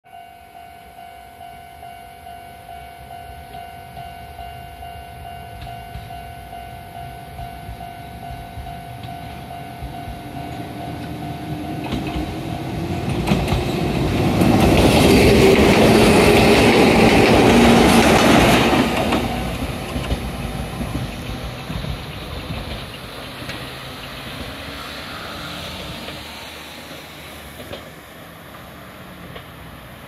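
Japanese level-crossing warning bell ringing in a steady pulse. Then a Toyama Chiho Railway 10030 series electric train accelerates past, its motor whine rising in pitch and its wheels clacking over the rail joints. The train is loudest a little after the middle and fades as it goes away.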